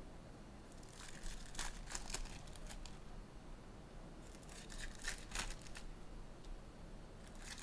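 Packaging of a trading-card hobby box being torn open and crinkled, in two spells of rustling and crackling about a second in and again past the middle.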